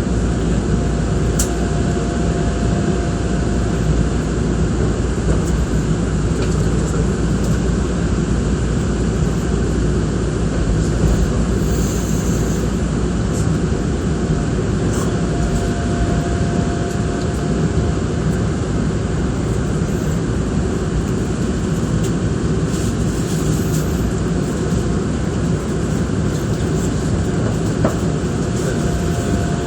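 Nankai Koya Line electric train running at reduced speed, heard from inside the front car: a steady rumble of wheels and running gear with a few light clicks from the track.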